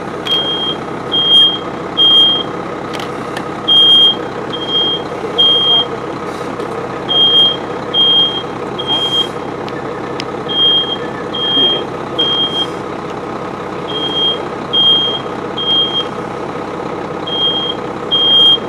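Smoke alarm sounding in the burning room in its three-beep temporal pattern: three short high beeps, then a pause, repeating about every three and a half seconds, set off by smoke from the burning armchair. Under it is a steady background hiss with a few faint crackles.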